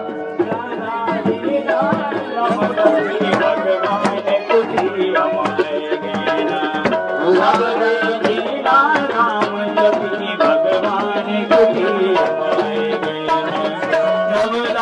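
Garhwali devotional music: hand-played drums keep a brisk beat under steady held notes. A voice sings a passage about halfway through.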